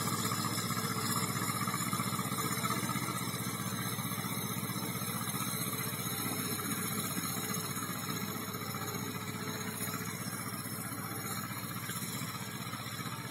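Vladimirets T-25 tractor's two-cylinder air-cooled diesel engine running steadily, growing slightly quieter toward the end.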